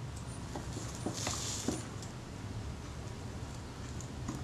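Faint small clicks and scrapes of a small screwdriver turning screws out of the top plate of a Kodak Retina IIIS camera body, a few separate ticks over a low steady hum.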